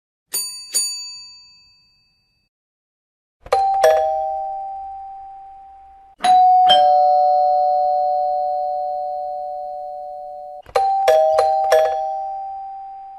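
Doorbell sound effects. A small high-pitched bell rings twice, then a two-tone ding-dong door chime sounds, higher note then lower. The chime comes again about three seconds later with a long ring-out, and near the end a quicker ding-dong-ding-dong of four strikes.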